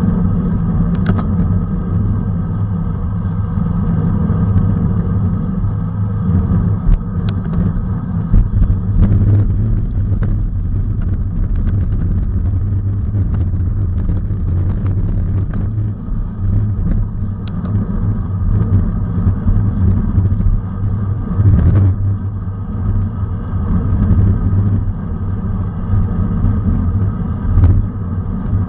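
Steady wind rumble on the microphone of a bicycle racing at speed, with scattered sharp clicks and knocks.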